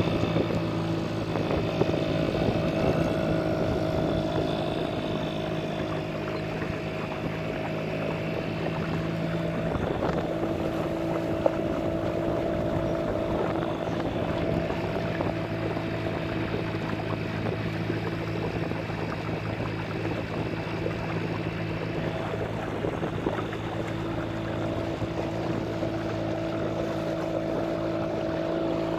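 Small outboard motor running steadily at cruising speed, with water rushing along the hull of the open boat.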